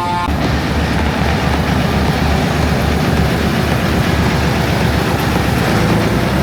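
Off-road rally truck engine running loudly, a steady dense rumble with a rapid low throb.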